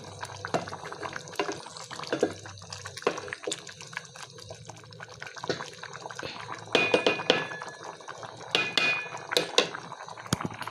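Rice simmering in a sufuria pot on low heat: irregular small bubbling pops and drips, with a few louder ringing metal clinks about seven and nine seconds in.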